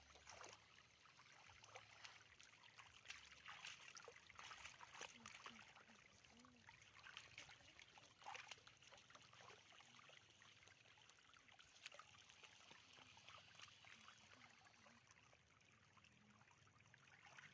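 Faint, irregular splashing and trickling of shallow water.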